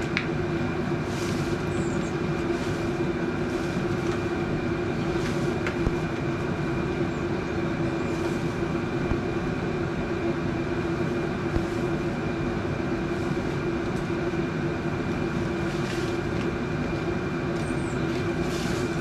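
A steady mechanical hum at a fixed pitch, unchanging throughout, with a few faint brief rustles over it.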